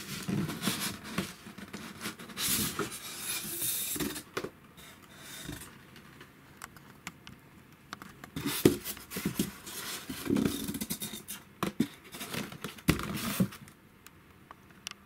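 Cardboard box and polystyrene foam spacer blocks being handled, scraping and rubbing against each other with scattered knocks and clicks, in two long stretches with a quieter pause between.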